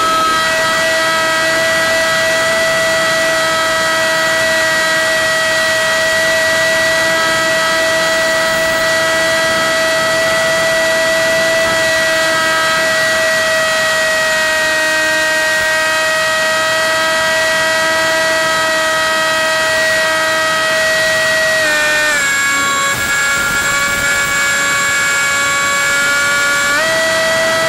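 Electric motor and propeller of a radio-controlled FPV plane, heard from on board, whining steadily at one pitch. About 22 seconds in the pitch steps down as the throttle is eased, and near the end it steps back up.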